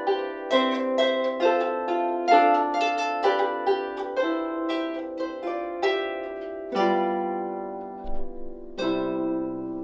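Lever harp played solo: a line of plucked notes at about two a second, then two deeper chords near the end, each left to ring out.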